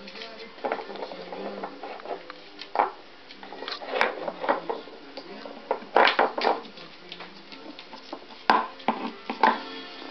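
Blue-fronted amazon parrot pulling and knocking the stacked rings of a foraging puzzle board against the board and the wooden table: scattered clatters and knocks that come in clusters, loudest about six seconds in and again a couple of seconds later.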